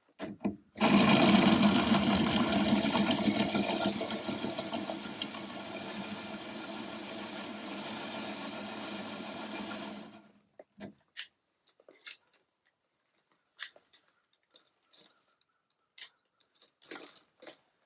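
Electric drill running as it bores into aluminium body panel, growing quieter over about nine seconds before it stops suddenly, followed by a few faint clicks and taps.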